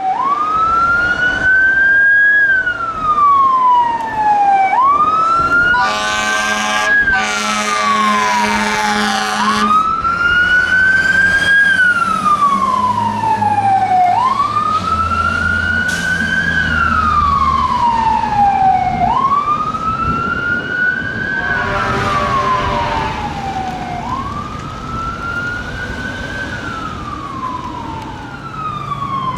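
Fire truck siren on a steady wail, rising and falling about every five seconds. A long air horn blast sounds over it about six seconds in, lasting some three seconds, and a shorter, fainter blast comes later.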